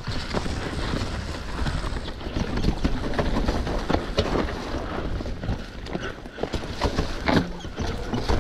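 Downhill mountain bike running over a rough trail: tyres rumbling over the ground, with a quick, irregular clatter of knocks and rattles from the bike, loudest about 7.5 seconds in.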